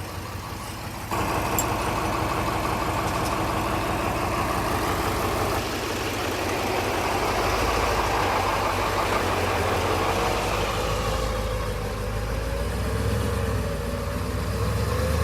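Heavy diesel engine running steadily, stepping up abruptly in loudness about a second in.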